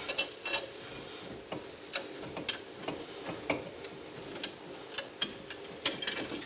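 Irregular light metallic clicks and clinks, about one or two a second, of a C-clamp being handled on a brake caliper right after it has pushed the caliper piston all the way in.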